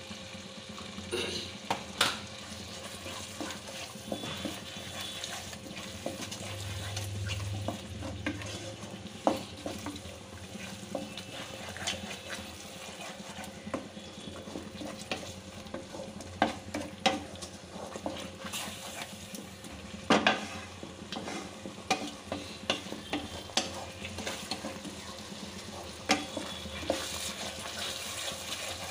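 A spice paste is frying in oil in a kadai and being stirred with a spatula, as the masala is fried down. A soft sizzle runs underneath, with irregular scrapes and knocks of the spatula against the pan; the loudest comes about twenty seconds in.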